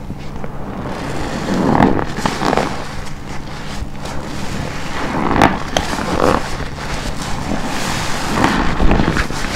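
Soapy black car-wash sponge squeezed by hand again and again: wet squelching and crackling of shampoo foam in uneven swells.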